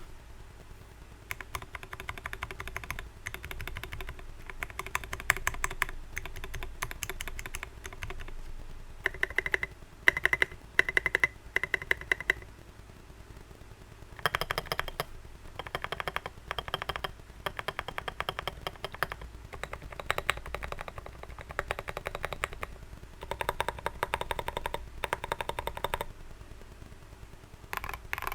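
Typing on a mechanical keyboard with Dareu Sky Blue V2 switches, in bursts of rapid key clicks a few seconds long with short pauses between them.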